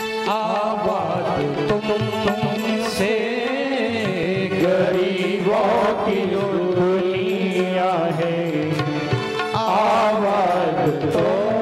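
Devotional bhajan music with a steady held drone under a wavering, ornamented melody line; no words are sung yet.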